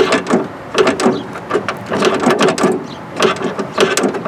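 Irregular clicking, knocking and rattling of handling against the 1995 Ford Bronco's rear tailgate as a camera and hands are worked into its latch area.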